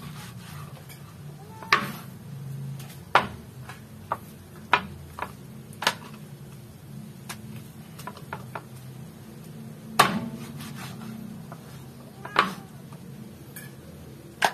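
Kitchen knife chopping through raw chicken and striking a wooden cutting board: irregular sharp knocks, spaced from under a second to several seconds apart, the loudest about ten seconds in.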